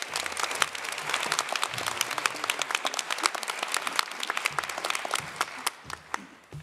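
Audience applauding, many hands clapping densely, thinning out and dying away near the end.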